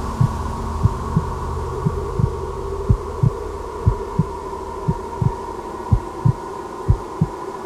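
Slow heartbeat sound effect: paired low thumps, lub-dub, about once a second, over a steady low hum.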